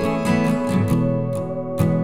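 Background music led by strummed acoustic guitar, with chords struck in a steady rhythm.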